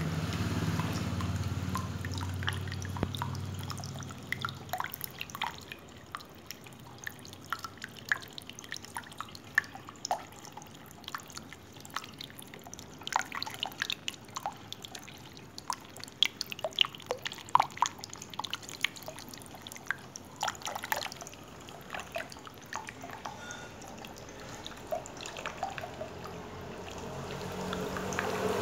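Water dripping and trickling in a small tabletop fountain, with many irregular drips falling into its basin. A low hum is there at the start, fades after a few seconds and returns near the end.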